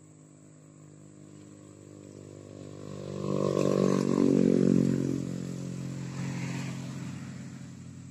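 A motor vehicle's engine passing by, growing louder to a peak about four seconds in and then fading away.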